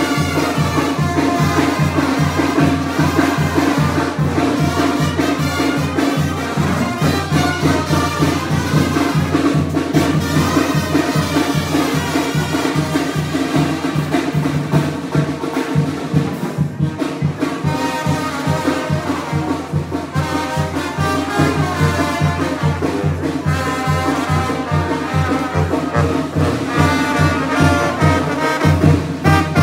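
Zacatecan-style tamborazo band playing: brass horns with a tuba and a steady, even bass-drum beat.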